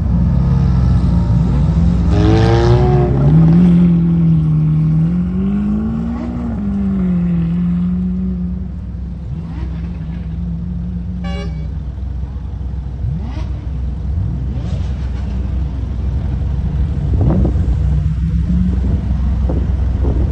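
Sports car engines running at low speed as the cars pull away, with an engine note that is revved up and down a couple of times early on, over a steady low rumble.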